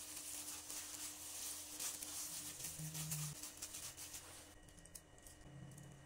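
Plastic-gloved hand squeezing and kneading soft mashed cassava dough in a glass bowl: irregular crinkling rustle of the glove with soft squishing, which stops about four and a half seconds in.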